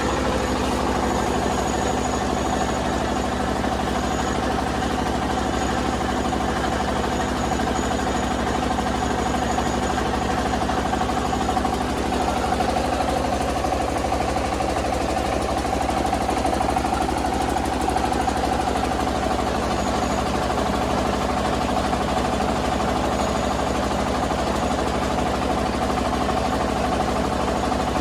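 Rice milling machine running steadily, a continuous mechanical hum with a few steady tones.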